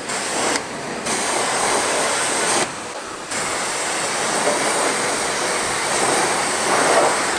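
Self-service car-wash pressure-washer lance spraying water onto a motorcycle and the wet concrete, a steady hiss of spray that cuts out briefly twice, about half a second in and again around three seconds in.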